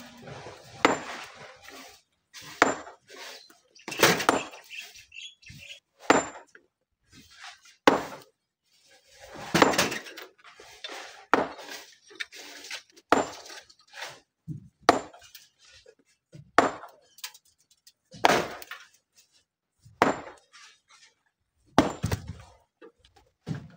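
Steel hand tools striking rock and stony gravel in a regular rhythm, one sharp blow about every two seconds, some with a faint metallic clink.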